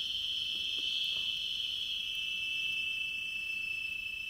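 Crickets chirring in a steady, high, unbroken chorus.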